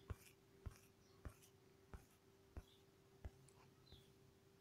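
Near silence with faint, evenly spaced clicks, about three every two seconds, over a faint steady hum.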